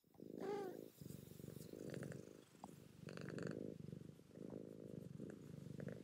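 Domestic cat purring in a steady rhythm of roughly one-second pulses, opening with a brief pitched rise-and-fall call.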